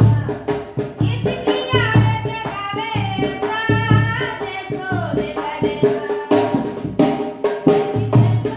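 Rajasthani folk song: a large metal-shelled dhol beaten in a steady rhythm of deep strokes, with a woman's high singing voice joining about a second and a half in and dropping out past the middle.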